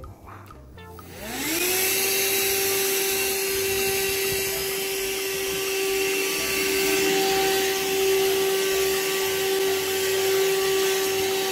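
Shark vacuum cleaner's motor switched on about a second in: its whine rises quickly in pitch, then runs steady.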